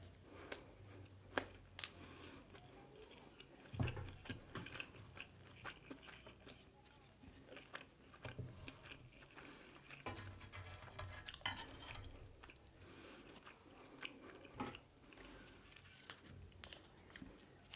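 Close-miked chewing and biting of grilled pork sekuwa and rice, with scattered crunches and small clicks.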